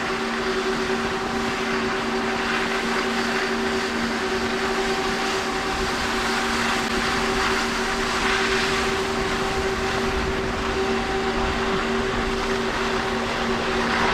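A steady mechanical hum of unchanging pitch over an even hiss.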